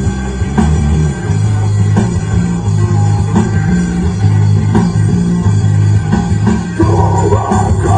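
Rock band playing live: guitar, bass and drum kit, loud and steady. The sound grows fuller in the middle range about seven seconds in.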